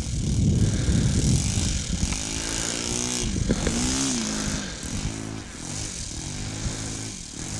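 Saito FA-62B four-stroke glow engine of a model P-51B Mustang running under power on its takeoff run across grass. The engine note wavers and bends in pitch from about two seconds in.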